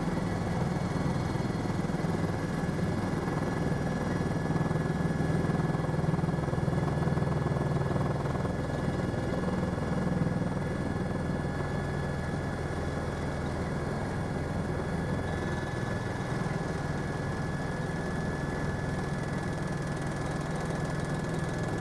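Helicopter engine and rotor running steadily on the landing approach, heard from inside the cabin: a low drone with a thin, steady high whine above it, easing a little about ten seconds in.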